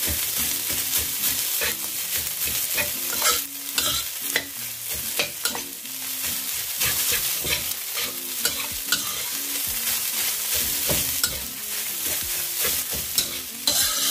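A metal spatula scraping and knocking against a wok again and again as fried rice with egg is stirred and tossed, over a steady sizzle from the hot pan.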